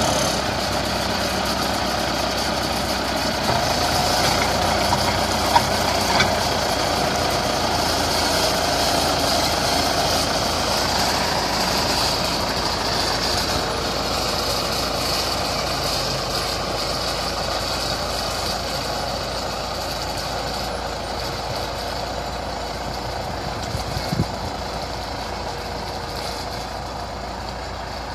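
DT-75 crawler tractor with a DZ-42 dozer blade, its diesel engine running steadily as it pushes through tall weeds, slowly fading as it moves away. A few brief knocks stand out, the first about five seconds in and another near the end.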